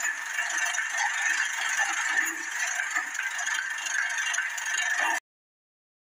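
Tractor engine running with rattling, heard as a harsh, hissy noise with no bass. It cuts off suddenly about five seconds in, leaving silence.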